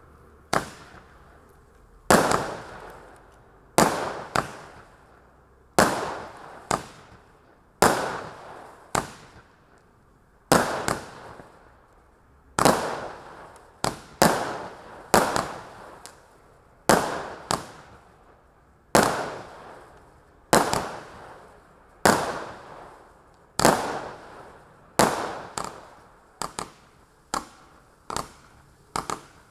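A 92-shot fireworks cake firing: a sharp bang about once a second, some coming in quick pairs, each trailing off over about a second.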